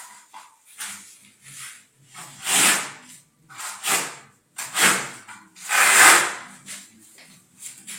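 A steel trowel scraping across grainy stone-texture decorative plaster in a series of separate strokes, the four loudest between about two and a half and six seconds in.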